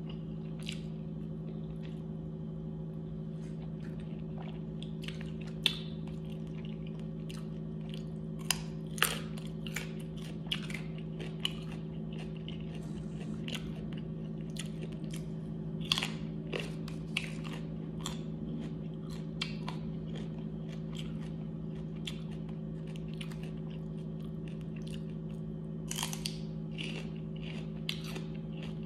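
Someone eating chicken wings: bites and chewing with irregular crunches and wet mouth clicks, a few sharper crunches standing out, over a steady low hum.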